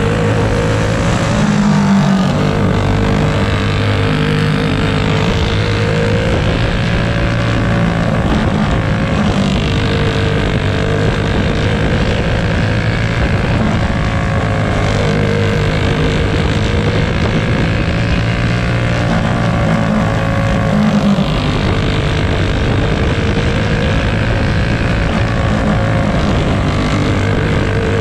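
Racing kart's single-cylinder four-stroke clone engine at race speed, heard onboard. Its note rises and falls, dipping about every ten seconds as it laps the oval.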